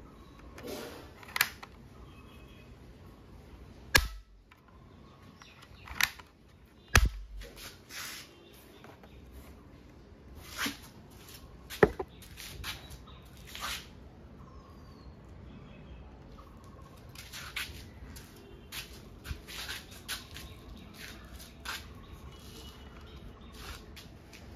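Irregular sharp clicks and knocks, a few dozen scattered over the stretch, the heaviest with a low thump about four and seven seconds in.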